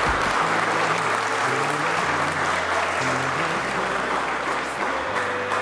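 A crowd applauding steadily, with music of slow, low held notes underneath.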